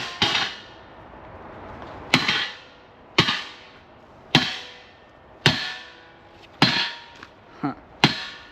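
Hammer blows, about eight strikes at a steady pace of roughly one a second, each sharp hit followed by a short metallic ring.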